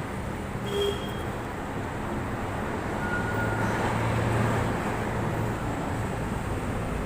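Steady background traffic rumble with a low hum, growing a little louder about halfway through.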